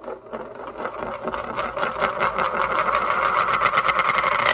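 Something being spun, clicking rapidly at about ten ticks a second over a whirring hum. It grows louder and then stops abruptly.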